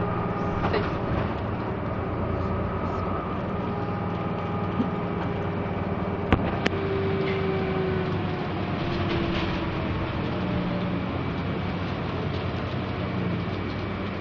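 Cabin noise inside a city transit bus: steady engine and road rumble with a faint whine that slides lower in pitch, and two sharp clicks a fraction of a second apart about six seconds in.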